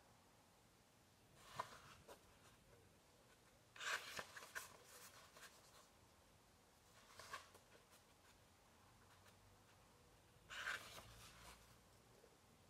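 Faint rustling of paper pages being turned in a book of drawings, in four short bursts a few seconds apart; the one about four seconds in is the longest and loudest.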